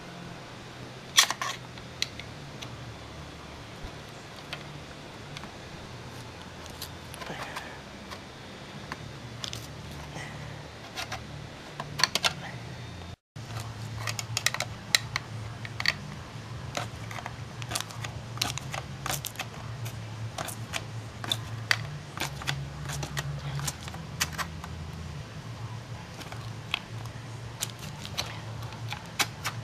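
Scattered sharp metallic clicks and clinks from working a sealed tin ammunition can (spam can) open with its opener, over a steady low hum. The clicks come more thickly in the second half.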